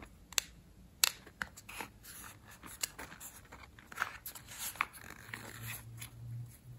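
Fingers handling and turning a small cardboard box, giving scattered sharp clicks and taps with short rustling scrapes of cardboard.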